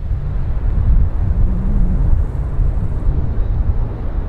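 Low, steady rumble of a rear-engined jet aircraft's engines as it rolls along the runway, heard from far off.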